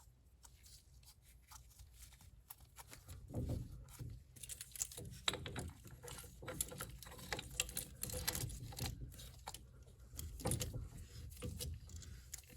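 Irregular metallic clicks and scraping from a tool working on a rear brake caliper as its piston is pushed back into the bore. The clicks come in clusters with short pauses.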